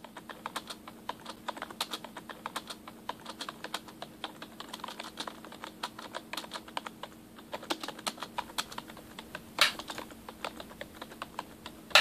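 Typing on a computer keyboard: a steady run of uneven key clicks, with a few louder clicks about ten seconds in, over a faint steady hum.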